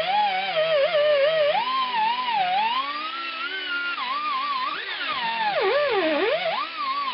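Background music: a continuous, gliding, wavering lead melody in a theremin-like tone.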